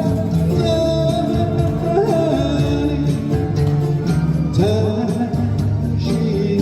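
Live band music: a slow ballad played with a steady accompaniment under a sung melody line.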